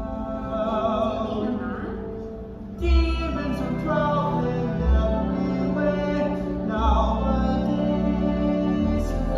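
Live musical-theatre song: a solo voice holds long notes with vibrato over the pit orchestra, deep bass notes entering about every two seconds from about three seconds in, recorded from the audience of a Broadway house.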